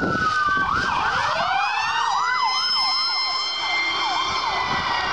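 Emergency vehicle sirens passing on the road: a slow rising-and-falling wail, joined about a second in by a fast warbling yelp that cycles two to three times a second.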